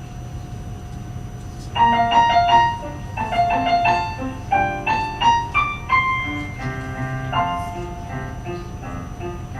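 Piano playing alone, its notes starting about two seconds in: the accompaniment's introduction before a children's choir begins to sing.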